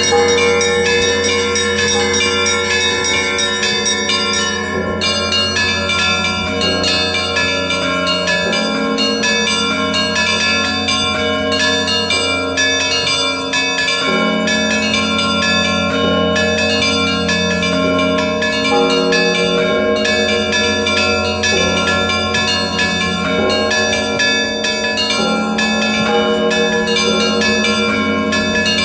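Russian Orthodox monastery bells ringing in a continuous peal: many smaller bells struck in quick succession over the lasting hum of the large bells.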